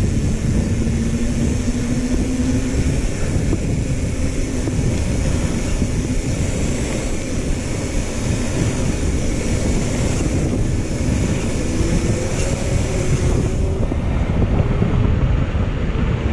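Steady low rumble of wind buffeting the camera microphone and mountain-bike tyres rolling on asphalt while riding at speed.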